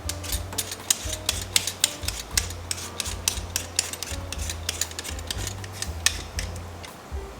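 A vegetable peeler scraping the skin off a potato in quick, uneven strokes, a few a second.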